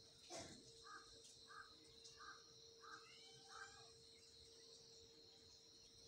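Faint outdoor ambience with a steady high insect drone. A bird calls five short notes, about two-thirds of a second apart, after a single knock about a third of a second in.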